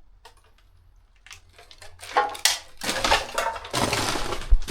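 Footsteps crunching and scraping over rubble and litter (bricks, stones, cans and bottles). After a quieter first couple of seconds the crunching comes thick and fast, with a thump near the end.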